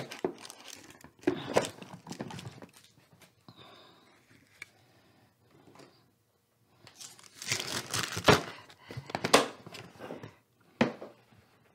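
Clear plastic cake carrier lid set back on its base and handled: rustling, scraping plastic with a few sharp clicks, in bursts at the start and again in the second half.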